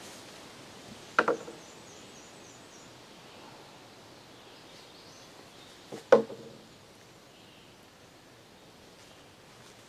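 Two sharp knocks on a wooden platform frame, about five seconds apart, each a quick double hit, over quiet outdoor ambience with faint bird chirps.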